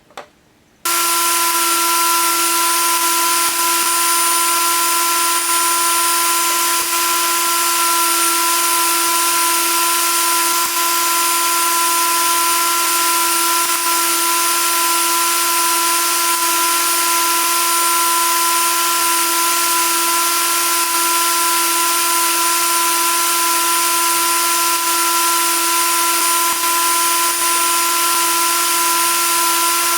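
An electric power tool switches on about a second in and runs at a steady, constant speed with an even whine over a hiss, under no load changes.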